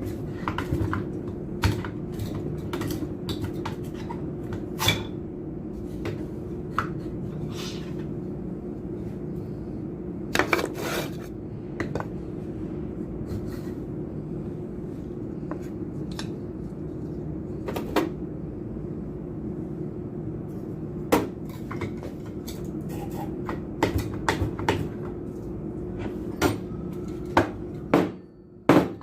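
Metal pump parts and tools clinking and knocking against each other at irregular intervals, over a steady low hum that drops away near the end.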